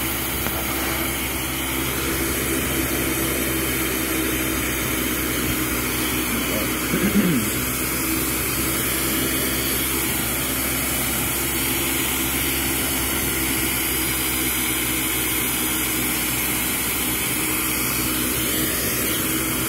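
Glassblowing bench torch burning with a steady rushing flame noise while lined glass tubing is heated in it. About seven seconds in, a brief wavering sound rises above it.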